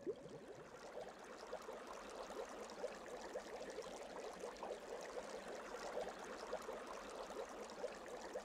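Shallow stream water running over stones, a steady babbling with many small splashes and gurgles.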